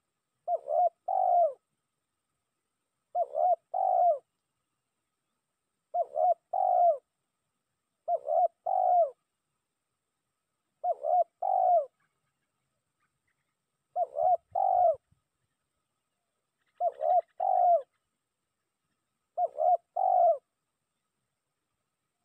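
Spotted dove (tekukur) cooing its territorial call: a short note followed by two longer rolling coos, repeated eight times at an even pace, about every two and a half to three seconds. It is the lure call used to draw a rival dove.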